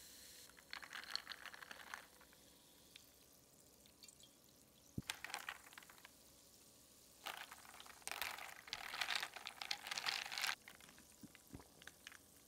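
Cranberry juice poured into a glass of ice and sparkling water. After a pause and a single sharp tap, there is a longer spell of liquid and ice moving in the glass, with a few small clinks near the end.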